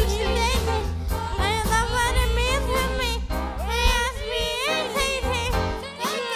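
Upbeat song: a sung vocal line with vibrato over a strong bass, the bass dropping out briefly near the end.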